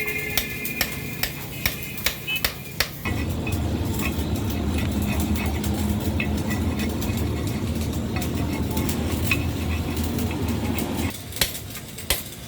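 Metal tools clinking and tapping on metal parts, then a steady low mechanical rumble for about eight seconds that stops abruptly, with a few clinks over it.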